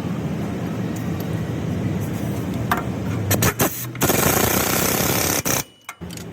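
Impact wrench rattling on shock absorber bolts: a short burst, then a longer one of about a second and a half that cuts off suddenly, over a steady low rumble.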